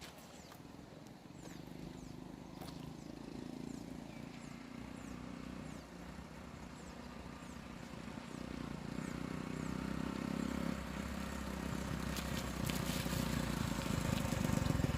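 A 1979 Honda CT90's small single-cylinder four-stroke engine running at a distance and growing steadily louder as the bike approaches. Faint bird chirps sound now and then in the first half.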